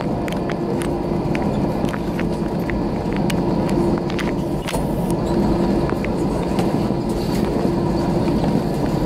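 Cabin noise inside an Airbus A321 rolling along the ground: the jet engines and airflow make a steady rushing noise with a steady hum, with many light clicks and rattles from the cabin.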